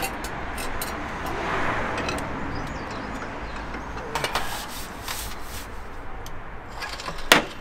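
Hydraulic trolley jack being worked by its long handle under a car, with a few metal clicks and knocks and one sharp metallic clank near the end.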